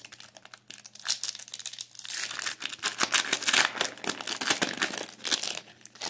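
Foil wrapper of a trading-card pack crinkling as it is torn open by hand: a dense run of quick crackles from about a second in, dying away near the end.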